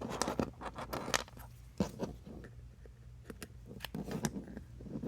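Small plastic clicks and light knocks from USB cables, plugs and a USB load tester being handled and fitted, scattered irregularly, with a louder click about two seconds in.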